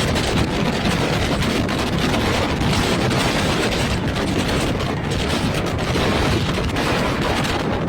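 Typhoon wind blasting across the microphone: a loud, continuous rush of wind noise with heavy low buffeting.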